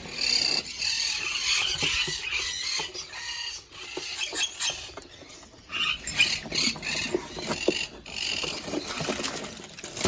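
Small aviary birds chirping and chattering together in high, busy calls, with scattered short clicks and rustles.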